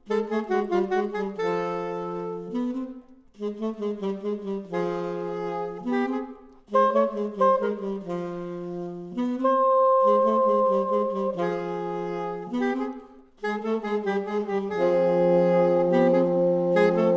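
Saxophone quartet playing short, punchy phrases of quick stabbed chords broken by brief pauses, ending on a long held chord.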